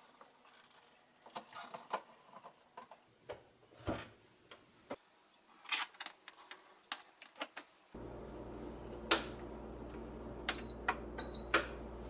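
Plastic water tank of a Gevi espresso machine being handled and fitted into place, giving scattered light clicks and knocks. About two-thirds of the way in a steady low hum starts, and a few more sharp clicks follow, two of them with short high beeps.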